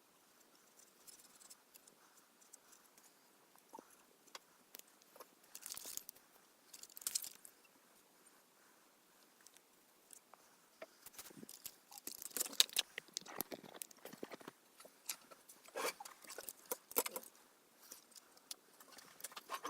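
Faint, scattered scratching and clicking from hands at work on a plastic model kit, with a short busy spell about six seconds in and a longer one from about eleven seconds in.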